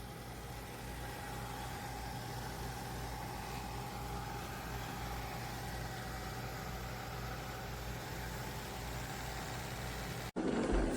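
Steady motor hum with a low rumble and a faint, constant high whine.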